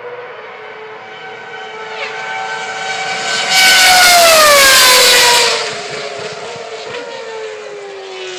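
Formula 1 car's 2.4-litre V8 engine passing at high revs. It builds to its loudest about four seconds in, its pitch falling as it goes by, then fades away.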